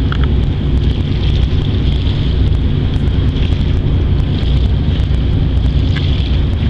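Steady low rumble of a fishing boat's engine running at speed as it passes, with the hiss of its wake and wind buffeting the microphone.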